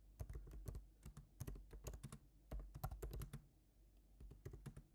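Typing on a computer keyboard: quick runs of key clicks, a short pause about three and a half seconds in, then a few more keystrokes near the end.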